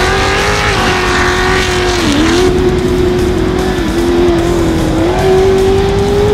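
Ultra4 off-road race car engine held at high revs, one steady note that dips briefly in pitch about two and about four seconds in, then climbs again.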